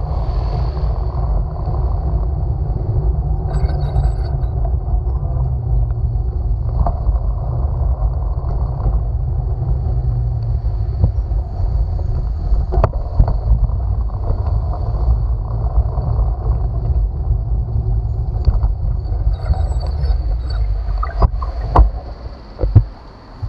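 Wind buffeting the microphone and road rumble from a bicycle being ridden, a steady low rumble with scattered knocks and clicks. Near the end a few sharp knocks come and the noise drops away sharply as the bike slows to a stop at a red light.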